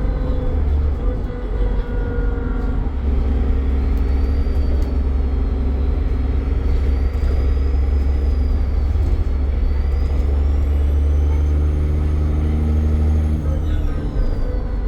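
Dennis Trident double-decker bus engine pulling under load, with a high turbocharger whistle that rises and falls twice as the bus accelerates and eases off.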